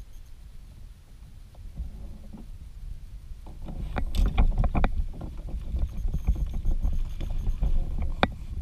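Water splashing and knocking against the hull of a pedal-drive fishing kayak, with wind rumbling on the microphone. Near the end comes one sharp splash as a hooked largemouth bass thrashes at the surface.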